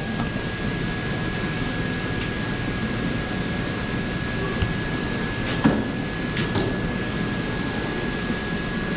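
Steady rushing background noise of a shopping mall, with a constant high-pitched tone running through it. A few sharp clicks come about five and a half to six and a half seconds in.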